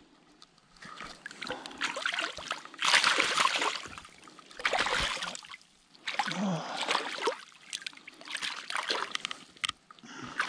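Stream water splashing and sloshing in repeated bursts as a landing net holding a trout is worked in the shallows.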